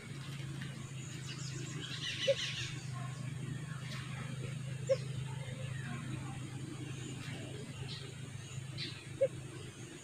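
White-eared brown doves giving short low hoots, three in all a few seconds apart, over faint high chirps of small birds and a steady low hum.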